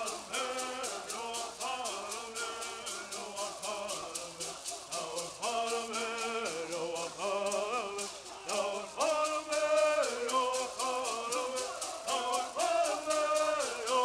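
A group of men singing a Southern California bird song together, with hand-held gourd rattles shaken in a steady quick beat.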